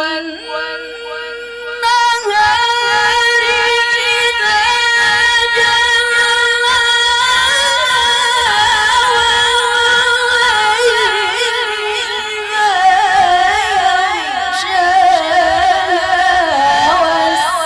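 A woman's melodic Qur'an recitation (tilawah), sung in long, ornamented held phrases with a wavering, trilling pitch. It rises and grows louder about two seconds in.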